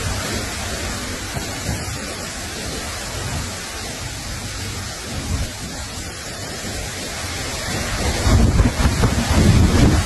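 Wind buffeting the microphone over a steady hiss, with low rumbles that grow stronger near the end.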